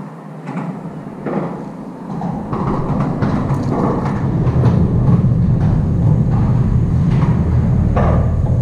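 A loud, deep rumble that builds over a few seconds and then holds, with scattered clanks over it: a heavy vehicle crossing the bridge overhead.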